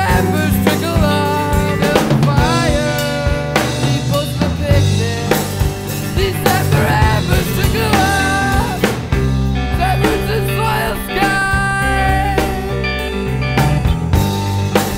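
Background music: a song with a drum kit beat, a bass line and a wavering melody line.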